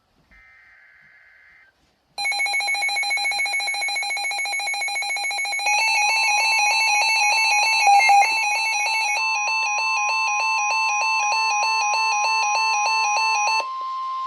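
NOAA Weather Radio alert: a brief burst of buzzing SAME data tones, then from about two seconds in a loud electronic alarm of rapid, pulsing multi-tone beeps. About six seconds in, a steady 1050 Hz warning tone joins and carries on alone after the beeping stops near the end. Together they mark the start of a new severe thunderstorm warning.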